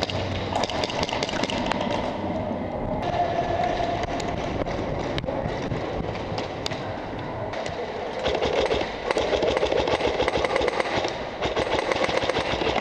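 Elite Force M4 airsoft rifle firing fast bursts of rapid shots from about eight seconds in, a quick rattle of clicks among the general clatter of play.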